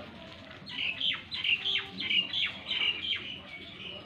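A bird calling: a quick run of about eight sharp, falling calls, roughly three a second, starting just under a second in and dying away near the end.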